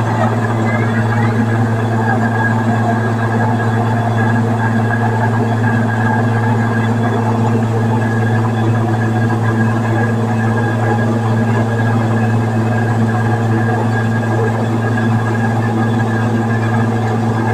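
Electric stone flour mill (atta chakki) running, a loud steady motor hum with the even rush of grinding over it.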